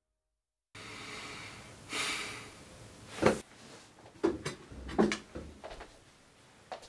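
After a moment of silence, quiet room sound with a person's breathy exhale, a short sharp sound about three seconds in, then a few soft knocks and rustles as she gets up from her chair at the desk.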